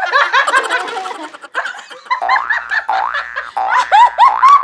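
Several people laughing loudly together, overlapping giggles and shrieks, over background music.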